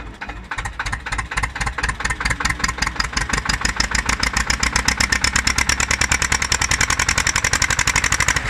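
Old diesel tractor engine, just started by hand crank, chugging in evenly spaced beats that quicken and grow louder as it picks up speed.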